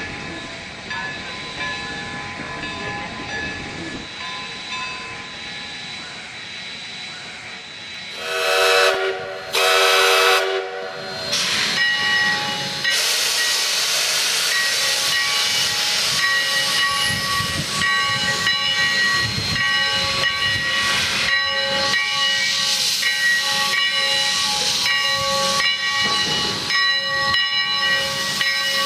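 Steam locomotive sound dubbed from a full-size engine: a quieter stretch, then two steam whistle blasts about eight seconds in, each about a second long. After that comes a loud, steady hiss of escaping steam.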